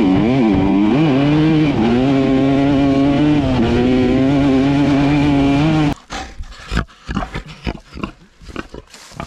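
Suzuki RM250 two-stroke dirt bike engine running under load, its revs rising and falling, cutting off suddenly about six seconds in. Then a pig grunts in short, irregular bursts, much quieter.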